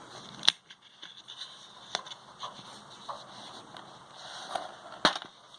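Handling noise from opening a Steelbook Blu-ray case: two sharp clicks, one about half a second in and one near the end, with a lighter tick and faint rustling between.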